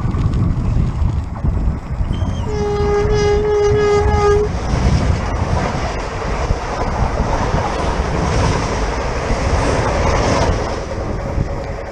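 Renfe class 447 electric multiple unit sounding its horn in one steady blast of about two seconds, then rushing past at speed with the noise of wheels on the rails. Wind buffets the microphone throughout.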